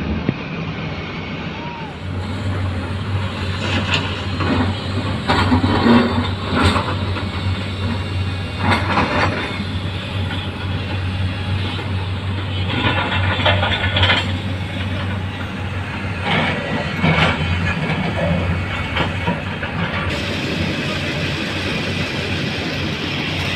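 Heavy diesel machinery running with a steady low drone, crossed every few seconds by short clanks and rattles. The sound changes abruptly about two seconds in and again near the end.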